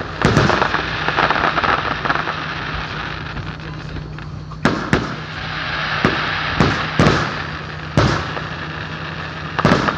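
Fireworks exploding: a stretch of crackling in the first couple of seconds, then about eight sharp bangs at uneven gaps, two close together near the end.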